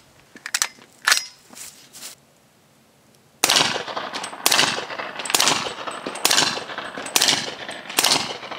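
A few sharp clicks from the rifle being handled, then a 300 Blackout AR with a Rugged Razor suppressor fires six suppressed shots of subsonic American Eagle ammunition, evenly spaced about a second apart, each with a short echoing tail.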